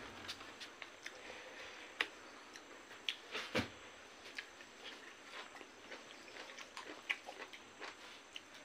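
Close-up eating sounds: chewing with many short, irregular mouth clicks and smacks as rice and meat are eaten by hand. There is a sharper click about two seconds in and another about three and a half seconds in.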